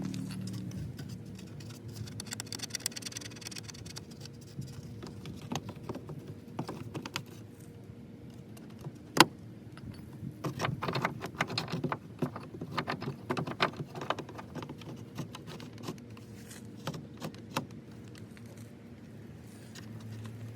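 Small metal parts and tools clinking and clicking while hardware is handled and fitted, with one sharp click about nine seconds in and a quick flurry of clicks just after.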